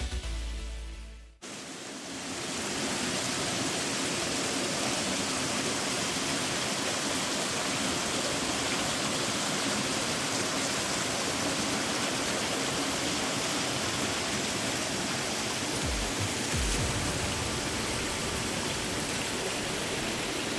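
Music ends about a second in, then creek water rushes steadily and evenly over rock.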